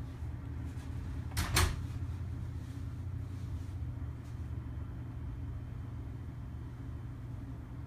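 A steady low rumble with a sharp double knock about a second and a half in.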